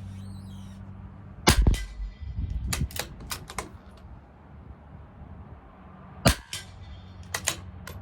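Two shots from a CZ 457 LRP bolt-action .22 LR rifle firing Eley Subsonic Hollow, about five seconds apart, each followed by a quick run of metallic clicks as the bolt is worked to eject and chamber the next round.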